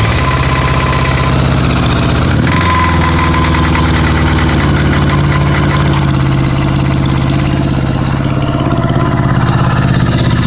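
Honda Goldwing GL1100 flat-four engine idling steadily just after a restart, with the rattle the owner is trying to track down. The engine speed wavers briefly about two and a half seconds in.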